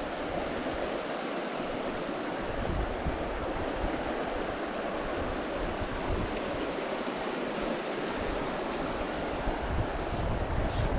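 Steady rush of flowing river water, with wind buffeting the microphone. Near the end a quick run of high-pitched ticks starts, about two to three a second.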